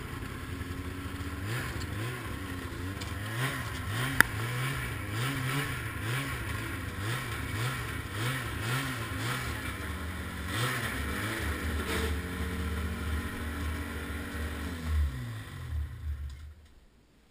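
Ski-Doo MXZ 700 two-stroke snowmobile engine running at low speed, its revs rising and falling about twice a second, then settling to a steady idle. A sharp click sounds about four seconds in, and the engine shuts off near the end.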